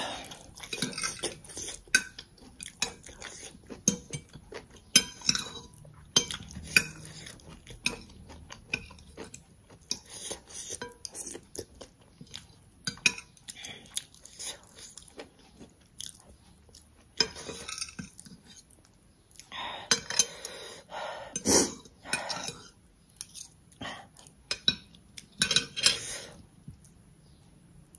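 Metal fork and spoon scraping and clinking against a plate as the last of the sauce is gathered up, with close-up chewing in between.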